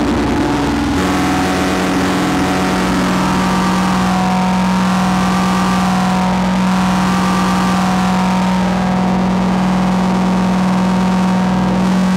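Metasonix Wretch Machine synthesizer droning through a spring reverb: a steady, distorted low tone with higher tones that slowly shift as its knobs are turned. The drone changes pitch about a second in.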